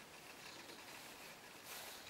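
Near silence, with faint handling sounds of a wooden plough plane being adjusted on a workbench.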